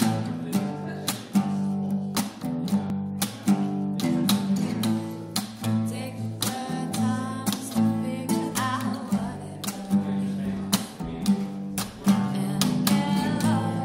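Acoustic guitar strummed in a steady rhythm. A woman's singing voice comes in about six seconds in and again near the end.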